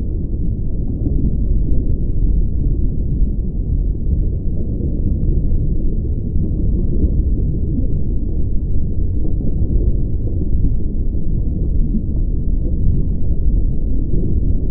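A steady, muffled low rumble with nothing heard above the low range, running evenly with no distinct events.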